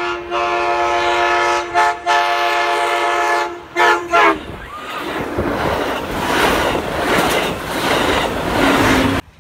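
Amtrak Pacific Surfliner train's horn blowing a loud chord, with brief breaks and loudest at about four seconds as the train reaches the platform. The horn then stops and the passing cars rush by at speed, until the sound cuts off suddenly near the end.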